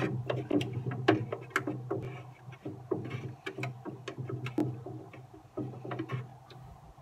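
A thin wooden stick stirring water inside a plastic watering can, knocking and tapping irregularly against the can's sides, a few knocks a second. The knocks thin out and get quieter near the end, over a steady low hum.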